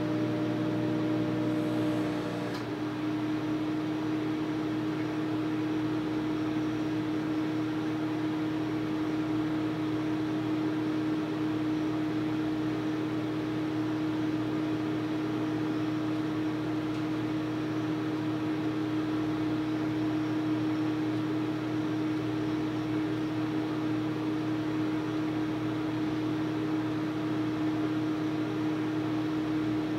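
Microwave oven running as it heats a bowl of oatmeal, a steady hum from its magnetron and fan. A few fainter tones in the hum drop out about two seconds in.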